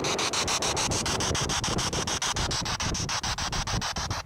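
SB7 spirit box sweeping through radio frequencies: a continuous hiss of radio static chopped by rapid, even clicks about eight times a second.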